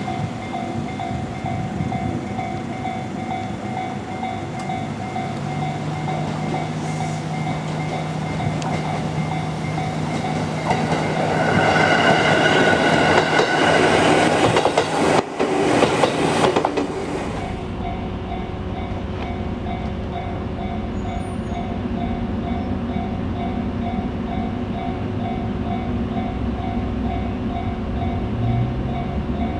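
A JR 117-series electric train running over a level crossing while the crossing's warning bell rings in a steady repeating pattern. About eleven seconds in, the train noise swells for roughly six seconds with wheel clatter and higher tones, then drops back abruptly.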